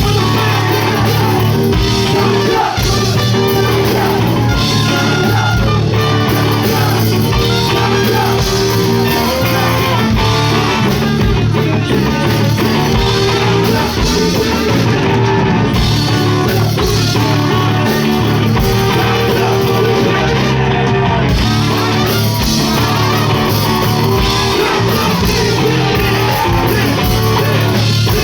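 Live rock band playing loudly: electric guitar, bass and drum kit with a steady beat, and vocals over the top.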